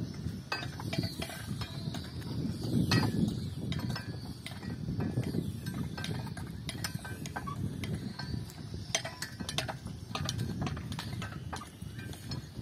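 Outdoor noise: a low, uneven rumble with scattered sharp clicks and ticks.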